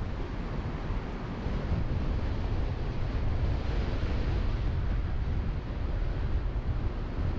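Wind buffeting the microphone of an onboard camera on a moving car, over a low rumble of the car and its tyres on the road. The noise grows louder about a second and a half in.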